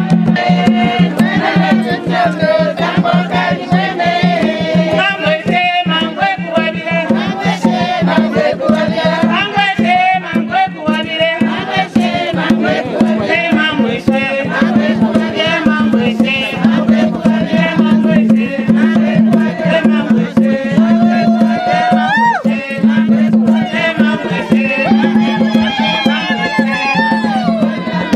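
Traditional Zambian hand drumming on tall wooden drums in a fast, steady rhythm, with voices singing along.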